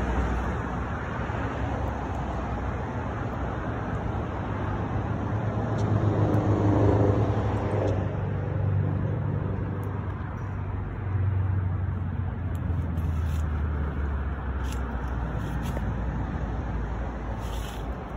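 Steady road traffic rumble, louder for a couple of seconds about six to eight seconds in as a vehicle passes.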